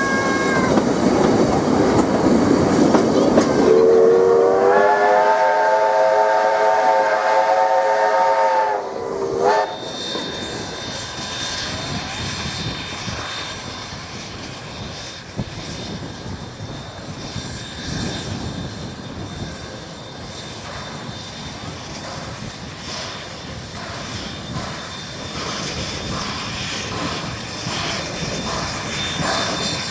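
NZR A class 4-6-2 steam locomotive A428 and its train. First comes running noise from the carriages, then the steam whistle chord held for about five seconds. After that the locomotive works towards the listener, its exhaust beats and rail noise growing louder near the end.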